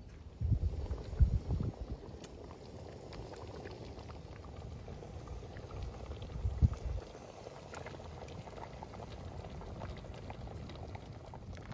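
Red pomegranate stew bubbling in a large steel pot over a wood fire, a steady bubbling with small pops. A few low thumps come in about half a second to two seconds in and again near the middle.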